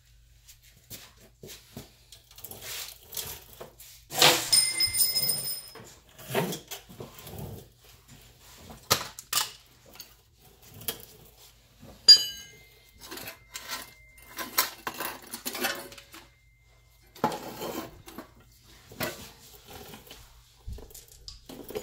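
Scattered metal clinks and clanks as bolts and tools are handled against the car's driveshaft parts. Two strikes ring out, one about four seconds in and a sharper one about twelve seconds in that rings on for a few seconds.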